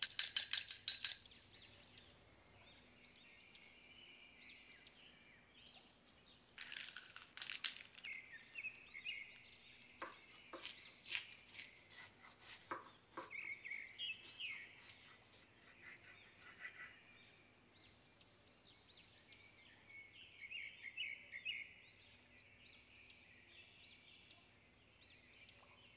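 Birds chirping throughout. A fork whisking egg yolk and milk in a glass bowl gives a quick run of loud clicks in the first second, and the crisp baked puff pastry crunches as a knife cuts through it from about seven to thirteen seconds in.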